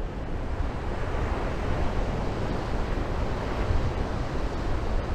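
Ocean surf breaking and washing onto a sandy beach, a steady wash of noise, with wind rumbling on the microphone.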